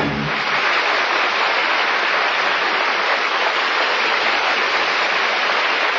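Studio audience applauding steadily after the closing number of a radio operetta broadcast, as the orchestra's last chord cuts off just at the start.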